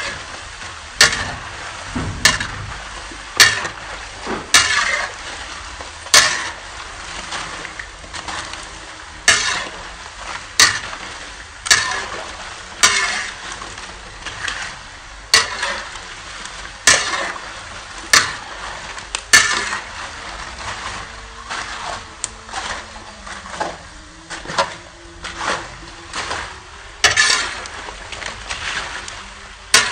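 Spatula scraping and knocking against a wok, about once a second with a few pauses, as kerupuk crackers are stirred in hot oil. Each stroke is followed by a brief sizzle.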